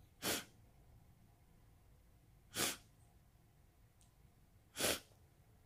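A woman sniffling three times, about two seconds apart, as in crying.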